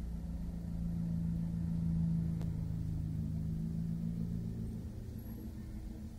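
A small van driving slowly past at close range in low gear, its engine note steady and loudest about two seconds in, then fading as it moves off while a small car comes up behind.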